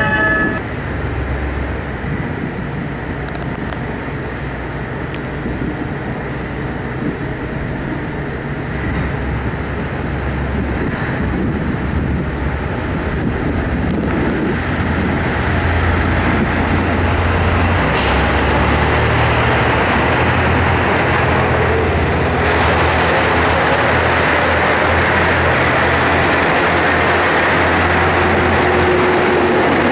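KiHa 189 series diesel train running, its engines droning low and steady while the overall sound builds gradually louder.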